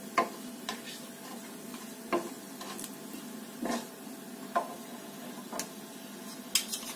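Whole spices (cumin seeds, cloves, bay leaf and cinnamon) sizzling in hot oil for a tempering (vaghar), stirred with a wooden spatula, with a sharp click or crackle every second or so. The crackling of the cumin and cloves is the sign that the oil is hot enough for the onions to go in.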